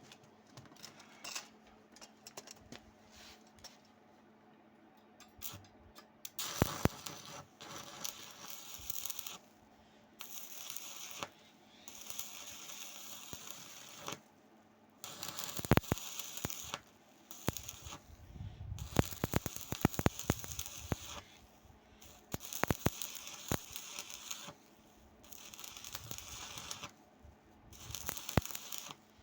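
Stick welding arc crackling and sputtering in a series of short runs, each lasting one to three seconds with brief pauses between. The first few seconds are quieter, with only scattered small clicks.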